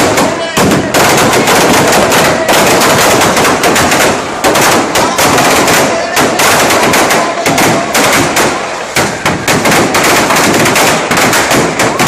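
Firecrackers packed inside a burning Ravana effigy going off in a rapid, almost unbroken run of loud bangs.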